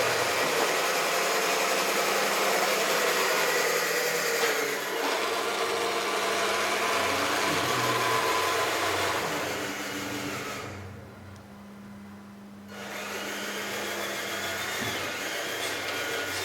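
Small electric motors and hydraulic pumps of radio-controlled construction models whirring steadily. The whirr dies away for about two seconds roughly two-thirds of the way through, then starts again.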